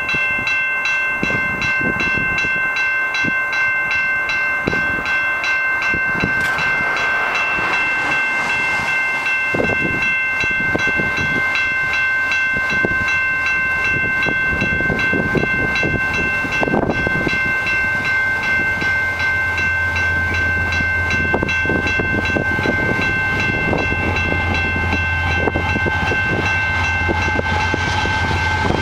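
Level-crossing warning bell ringing steadily with rapid repeated strokes while the gates are down. From about nineteen seconds in, the low rumble of the approaching CP diesel locomotives joins it.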